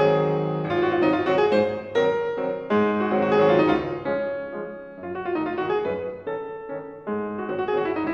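Piano music: notes and chords struck one after another and left to fade.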